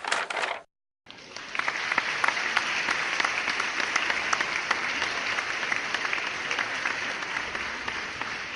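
A brief noisy burst, then applause: many hands clapping, starting about a second in, holding steady and easing slightly near the end.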